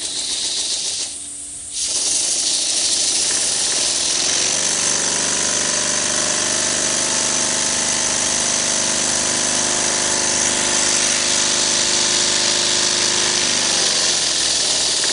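Small twin-cylinder double-acting oscillating engine running fast on compressed air: a rapid, even exhaust chatter with air hiss. It dips briefly about a second in, then comes back louder and settles into a steady high running note.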